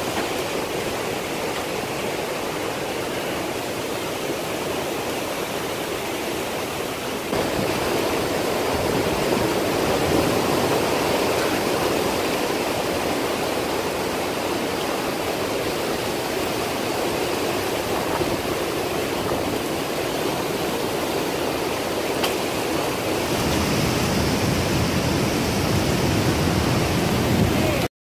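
Strong storm wind blowing through trees: a steady rushing noise that grows louder about seven seconds in and deepens near the end.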